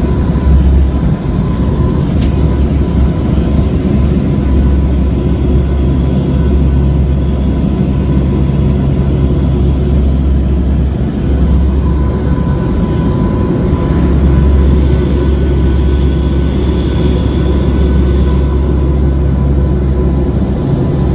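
NOAA Hurricane Hunter aircraft's engines running steadily in flight, heard as a loud, constant deep drone inside the cabin.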